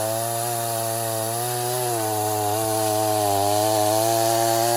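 Echo CS-501P two-stroke chainsaw running at full throttle while cutting through a white oak log. The engine's pitch sags slightly under load and recovers a couple of times.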